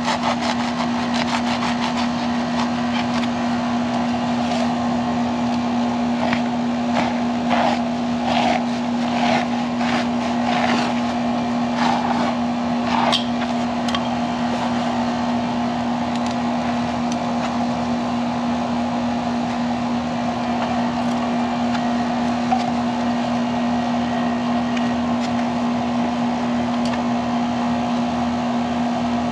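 Steady electrical hum of an outdoor air-conditioning condenser unit running, one low even tone under a fan-like whir. Scattered clicks and rustles of hands working close to the unit from about 7 to 13 seconds in.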